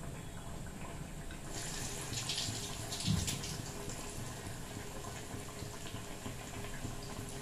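Hot oil sizzling steadily in a wok around a battered, coated piece deep-frying, with a spell of louder, crackling hiss about two seconds in. A single dull knock sounds about three seconds in.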